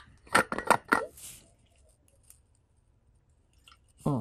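A person drinking water: several quick gulps and swallows in the first second or so.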